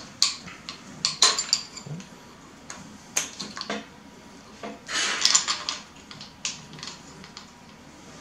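Scattered light metal clinks and clicks as a timing-belt pulley and bracket assembly and its bolts are handled and fitted against an engine block, with bunches of clinks about a second in, around three seconds and around five seconds.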